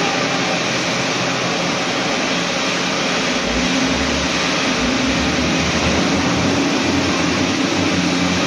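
Steady drone of running machinery, even in level throughout, with a low hum under a broad hiss.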